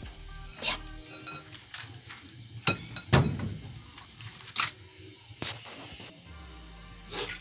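Background music with steady held notes, broken by a handful of sharp clicks and knocks, the loudest about three seconds in.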